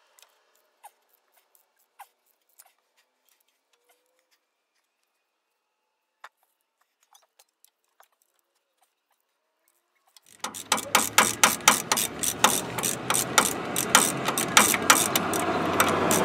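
A few faint isolated clicks, then about ten seconds in a ratchet wrench starts clicking rapidly and loudly as it turns the nut on a bolt threaded into the camshaft, drawing the new cam timing gear onto a Ford 4.9-litre inline-six.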